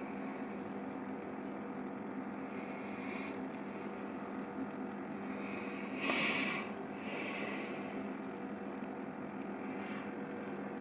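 Steady low electrical hum, with a few brief hisses on top, the loudest about six seconds in.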